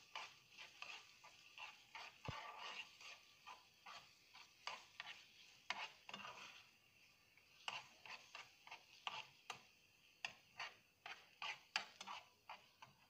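Metal spoon stirring a thick sauce in a frying pan, with irregular clicks and scrapes against the pan and a faint sizzle in the first half.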